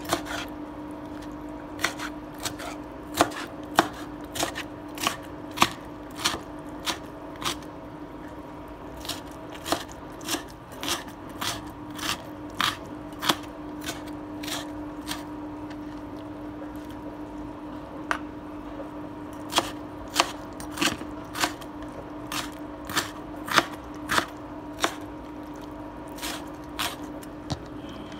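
A wide-bladed kitchen knife chopping kimchi on a plastic cutting board: sharp knocks of the blade on the board at an uneven pace of about one or two a second, with a pause of a few seconds around the middle. A steady low hum runs underneath.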